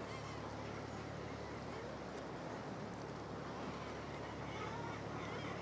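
Steady wash of sea water and wind below a seabird cliff, with faint seabird calls near the end.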